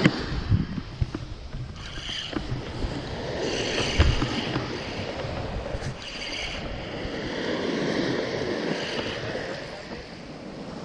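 Small waves washing onto a sandy beach with wind buffeting the microphone, while a spinning reel is cranked in short spells to gain line on a hooked fish. A few sharp handling knocks come at the start and again about four seconds in.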